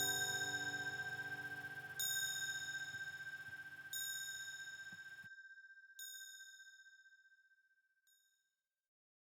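End of a song: a bell-like chime is struck every two seconds, five times in all, each strike quieter, ringing over the last fading guitar chord, which stops about five seconds in.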